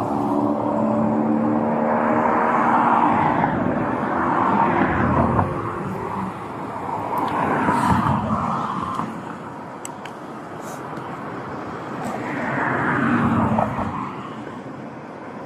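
Road traffic: several cars passing by one after another, each a swell of tyre and engine noise that rises and fades.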